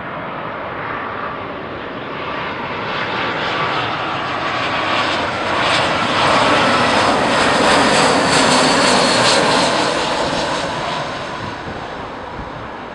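Jet engines of an Airbus A320 on its landing approach, passing by: the sound swells to a peak a little past the middle, with a high whine over the rumble, then fades away.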